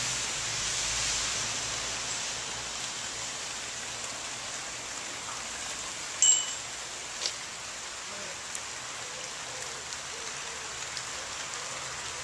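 Steady hiss of light rain falling on the canal and the towpath vegetation, with scattered small drip ticks. A short sharp sound about six seconds in stands out above the rain.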